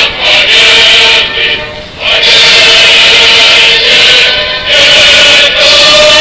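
Choral music: a choir singing long held notes, with a brief dip about two seconds in.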